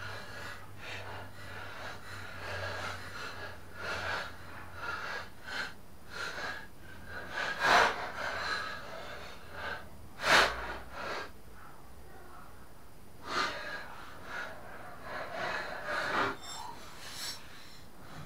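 Irregular scrapes and knocks of a wrench and metal blades on a lawn mower's bladed cutting disc as the blade bolts are worked, with two louder clanks near the middle.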